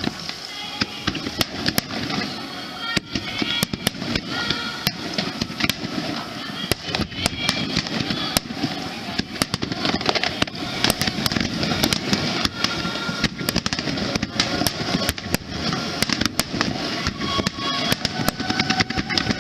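Aerial fireworks bursting and crackling in a rapid, irregular string of sharp cracks that grows denser about halfway through, over background music and crowd voices.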